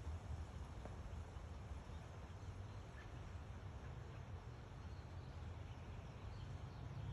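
Faint outdoor background: a low, uneven rumble and a soft hiss, with no distinct event.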